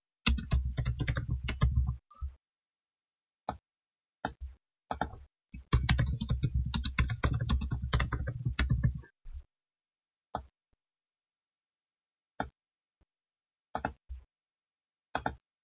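Typing on a computer keyboard in two quick runs of keystrokes, a short one at the start and a longer one in the middle, followed by a few single clicks.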